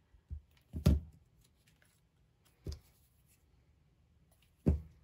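Four short knocks and bumps from hands and a plastic liquid-glue squeeze bottle working over a craft desk, the loudest about a second in and another near the end.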